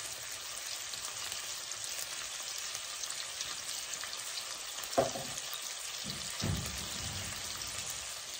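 Cod fillets frying in oil in a nonstick pan, a steady crackling sizzle. A short knock about five seconds in, then a brief low bump.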